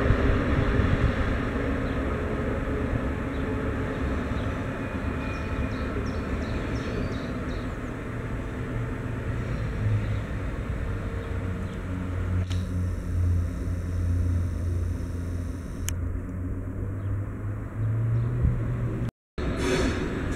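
Diesel shunting locomotive's engine running with a steady low rumble and hum, which grows stronger in the second half and breaks off for an instant near the end.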